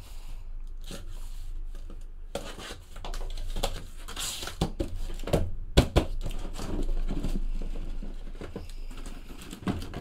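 Corrugated cardboard shipping case being handled and opened by hand: irregular rustling, scraping and knocks of cardboard. There is a brief tearing hiss about four seconds in and a sharp knock just before six seconds.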